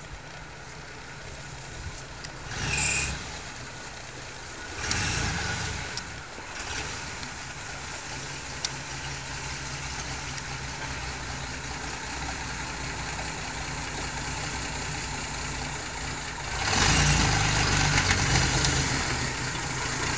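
Engine of a chopped 1949 Chevrolet rat rod running at low speed. There are two short surges about three and five seconds in. The engine then rumbles steadily and grows louder for the last few seconds as the car comes close.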